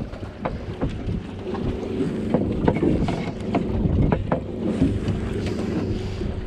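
Boat motor running steadily with wind on the microphone, under a series of irregular knocks as a freshly caught halibut is struck with a hammer to kill it.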